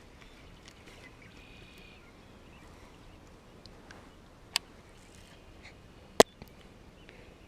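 Quiet outdoor background broken by two sharp clicks, about four and a half and six seconds in, the second one louder.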